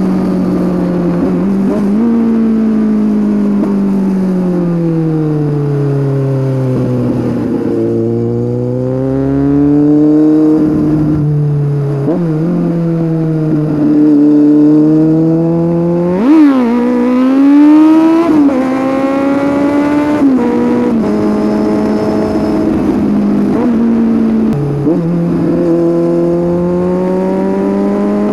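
Kawasaki Z800's inline-four engine through an aftermarket Scorpion exhaust, ridden on the road. The revs sink slowly over the first few seconds, then climb and fall as the throttle is rolled on and off. A sharp rev blip about halfway through is the loudest moment, and the revs climb again near the end.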